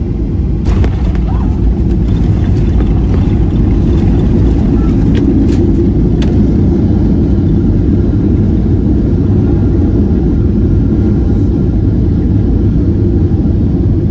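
Steady low rumble of a Boeing 737-800 heard from inside the passenger cabin: engine and airflow noise. A few sharp clicks sound about a second in and again around five to six seconds in.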